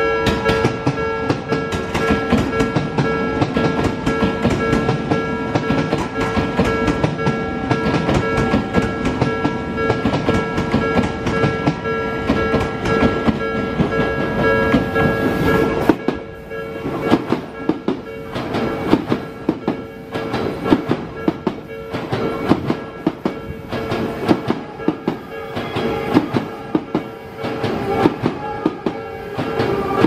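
Odakyu electric commuter train passing close by, its wheels clacking over rail joints, the clacks standing out more sharply in the second half. A level crossing warning bell rings steadily throughout.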